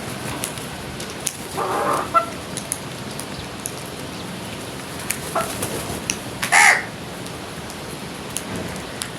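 Crows cawing: two calls, one about two seconds in and a louder, shorter one near the seventh second, over a steady background hiss with scattered faint ticks.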